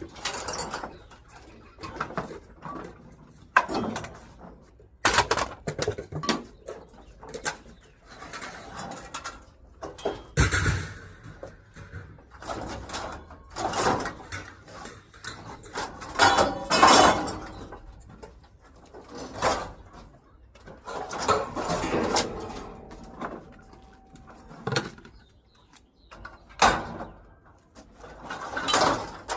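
Irregular clanks and knocks of scrap metal and junk being handled and set down, one after another at uneven intervals.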